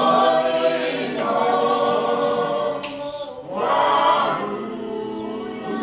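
A group of voices singing unaccompanied, a worship song in long held notes.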